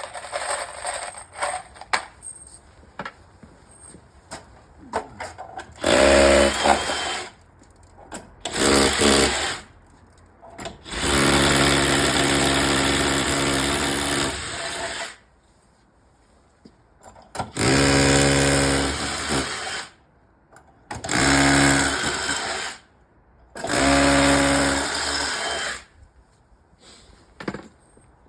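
Power drill run in six bursts of one to four seconds each, the motor whine holding a steady pitch, as it drills and fixes through the plastic wall pods. Light clicks and knocks come between the bursts.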